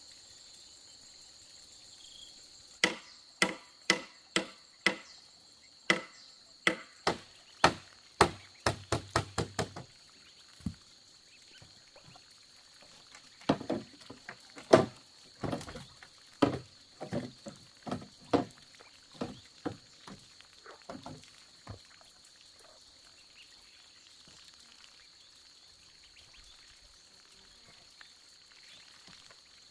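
Bamboo being chopped: a run of sharp strikes about two a second that quickens into a fast flurry around ten seconds in, then a second, more uneven run of strikes that dies away after about twenty seconds. A steady high insect drone runs underneath.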